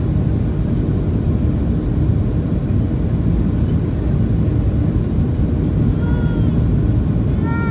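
Steady rushing cabin noise inside a Boeing 737-700 on final approach, from its engines and the airflow. Near the end come two short high-pitched cries, the second rising and then falling.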